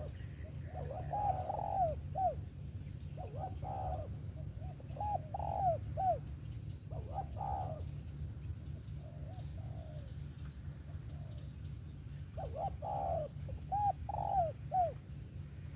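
Spotted dove cooing, several phrases of short arched notes with pauses of a few seconds between them, over a steady low hum.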